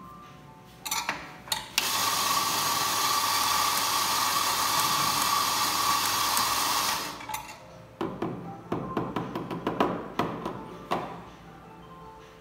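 Electric espresso grinder running for about five seconds, grinding coffee into a portafilter held in its fork: a steady whir with a hum. Then a run of sharp clicks and knocks as the filled portafilter is handled.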